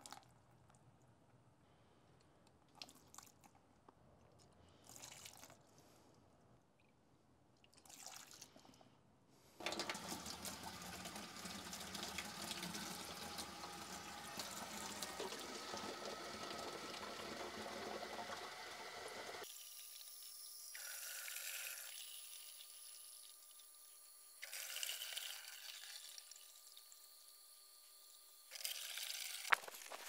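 A few short, faint pours of cleaning liquid, then about ten seconds of tap water running into a plastic container at a sink, followed by a few quieter splashes.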